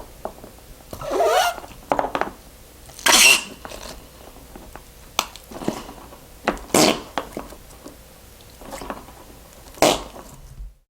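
Flarp noise putty being squeezed and pushed in its plastic tub, giving a string of short squelching fart noises with pauses between them.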